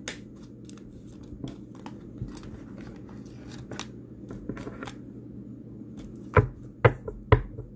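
Tarot cards being shuffled by hand, a soft patter of small card clicks, then near the end four sharp knocks of the cards against the tabletop.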